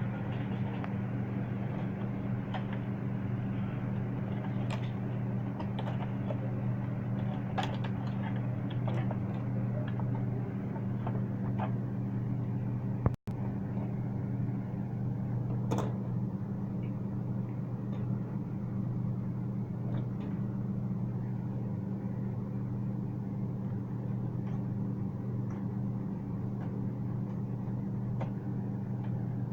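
Steady low hum with scattered light clicks and taps of printer parts being handled during disassembly. The sound cuts out for an instant about halfway through.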